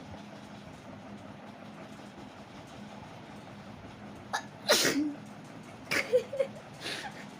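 A person sneezes once, loudly, about four and a half seconds in, with a falling pitch on the release. A sharp intake just before it and a few shorter breathy sounds after it follow, over a faint steady hum.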